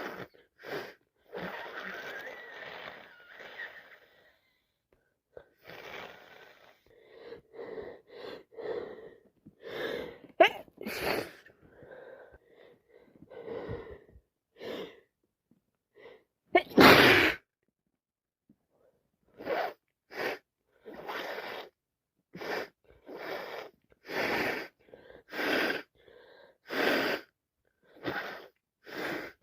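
Woman with a wet head cold sneezing again and again, with gasping breaths between the sneezes. The loudest sneeze comes just past the middle, followed by a run of short, evenly spaced bursts about one a second.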